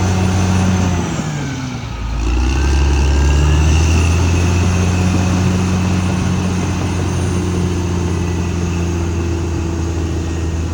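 Caterpillar D6R XL bulldozer's diesel engine running; its pitch falls about a second in, then it comes back strong and deeper about two seconds in and runs steady under load.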